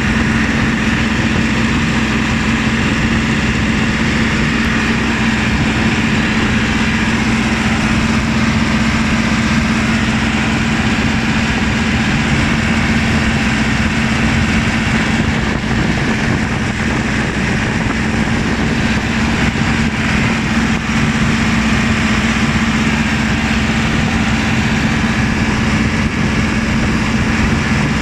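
Ford 4610 tractor's three-cylinder diesel engine running steadily, heard from the driver's seat beside its upright exhaust stack, with a strong, even hum.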